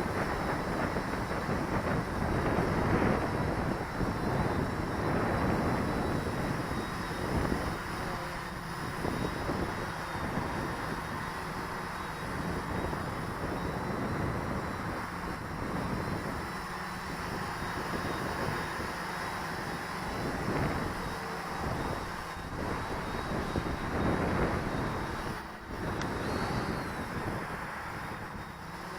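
Quadcopter's electric motors and propellers whirring steadily in flight, with gusty wind buffeting the microphone.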